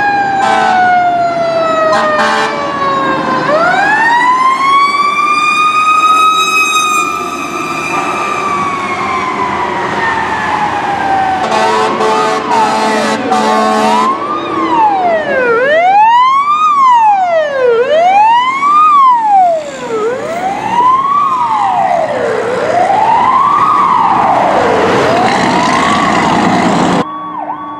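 Fire truck sirens: a siren winds up and then slowly winds down, with short horn blasts and a longer horn sounding partway through. A siren then sweeps up and down about every two seconds.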